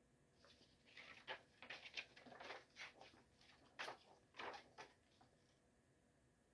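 Faint rustling and flicking of paper as the pages of a CD booklet are turned, a run of short soft strokes that stops about five seconds in.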